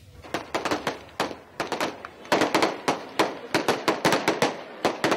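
A string of firecrackers going off: sharp, irregular bangs several a second, starting just after the opening and growing denser from about two seconds in.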